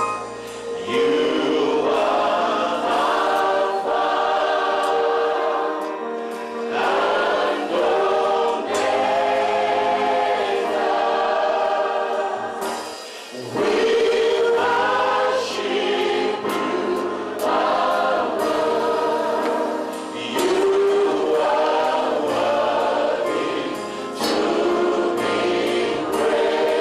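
A choir singing a religious song in phrases a few seconds long, with brief dips between them and the deepest dip about 13 seconds in.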